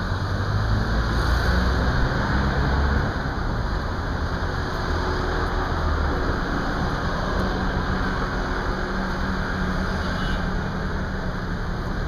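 Street traffic: car and motorbike engines running close by, a steady noisy rumble heaviest in the low end, a little louder in the first few seconds.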